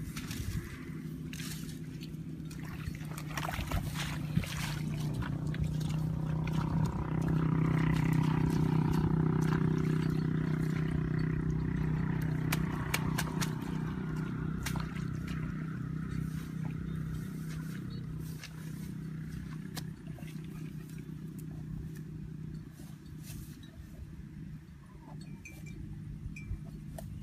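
A low, steady hum that swells to its loudest about eight seconds in and then slowly fades, with scattered crackles and snaps of dry palm fronds being handled over a muddy pit.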